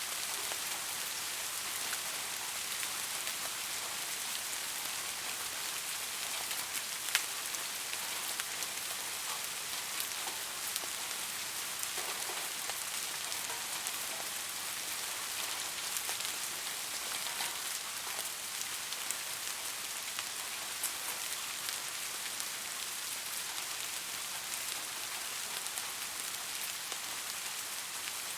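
Steady rain falling on a surface: a constant hiss with scattered sharp drop ticks, the clearest about seven seconds in.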